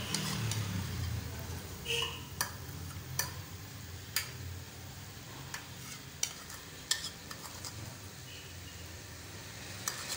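Egg-topped paratha frying on a hot tawa: a steady soft sizzle with scattered sharp pops and ticks, roughly one a second.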